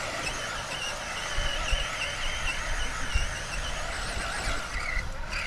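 Brushless electric motor of a Traxxas Summit RC truck whining, its pitch wavering up and down with the throttle, over a low rumble.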